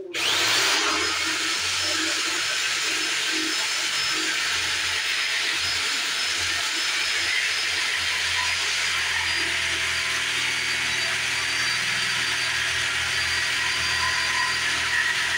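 Handheld electric power tool running steadily for about fifteen seconds, with a motor whine that rises as it spins up at the start and falls as it winds down near the end.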